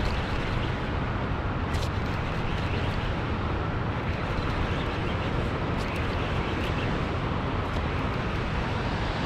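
Steady rush of churning water from a dam's turbine outflow and spillways, strongest in the low end, with a few faint ticks.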